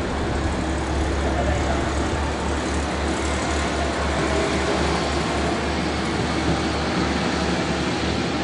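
Ise Railway diesel railcar train moving through the station: a steady deep engine rumble that takes on an even pulsing throb a couple of seconds in.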